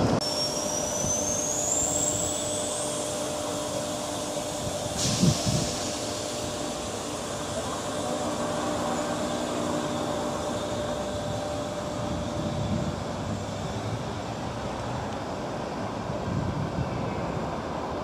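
Sydney Trains Tangara electric train at the platform: a high motor whine rises in pitch over the first three seconds over a steady hum, with a short thump about five seconds in.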